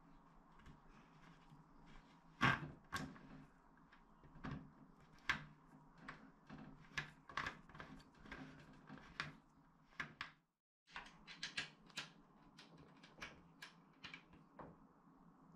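Scattered light clicks and knocks of a metal bolt and washer being fitted through a cot's end panel and into the side rail, with one louder knock about two and a half seconds in. Near the end, a hex key engages the bolt to tighten it.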